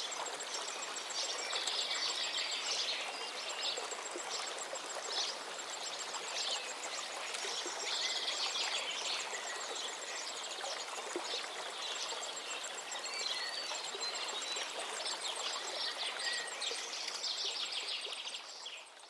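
Stream water flowing steadily, with several birds singing short repeated phrases over it and a fast high-pitched ticking. It all fades out near the end.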